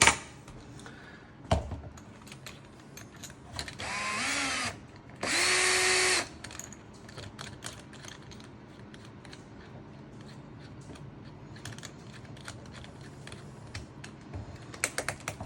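Power drill with a 6 mm bit boring out the magazine-screw hole in a crossbow's body, run in two short bursts about a second long, each with a motor whine that rises as it spins up. Small handling clicks and knocks come before and after.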